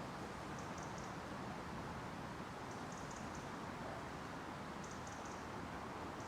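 Steady wind through bare winter trees over a low hum of distant city traffic. Faint high ticks come in little groups of three or four, about every two seconds.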